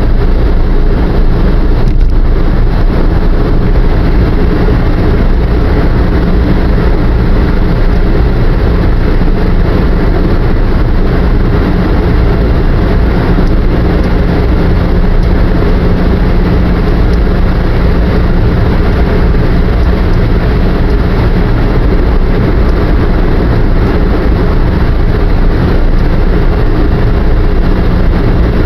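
Steady drone of a car cruising at highway speed, heard from inside the cabin: tyre and road noise with a low engine hum.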